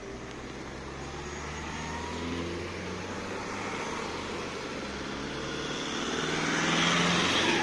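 Cars driving slowly past at close range with their engines running. The sound grows louder near the end as one vehicle passes close.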